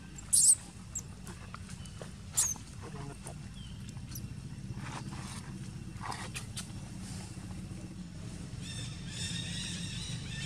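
A baby macaque crying in a few short, high-pitched squeals in the first seconds, one of them falling slightly in pitch, over a steady low background hum.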